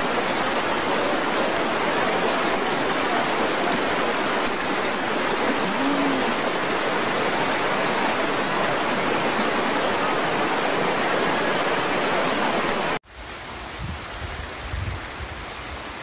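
Rushing floodwater: a steady, loud, even rush that cuts off abruptly about thirteen seconds in. It gives way to quieter steady rain, with a few low bumps on the microphone.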